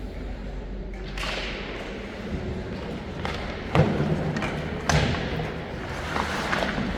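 Two loud thuds against the boards of an ice hockey rink, about a second apart, each with a short ring in the arena, over the scrape of skate blades on the ice.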